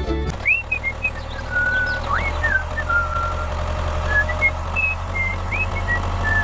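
A steady low engine-like rumble with a whistled tune above it: short held notes, several starting with a quick upward slide.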